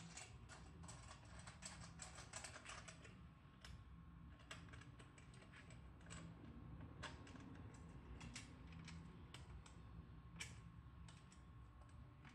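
Faint, irregular clicks and ticks, a quick flurry in the first few seconds and then scattered single ones, from gloved hands working at a black metal chimney pipe and the band at its joint.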